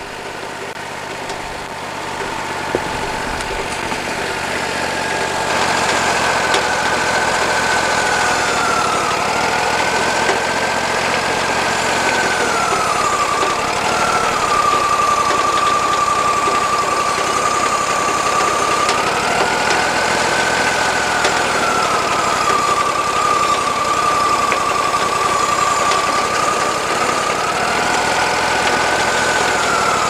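Wood-Mizer LT40 Wide sawmill's engine running, getting louder over the first few seconds, then its pitch dropping and recovering again and again.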